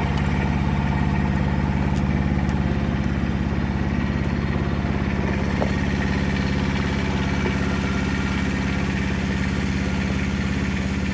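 An engine idling steadily, with an even, unchanging low hum.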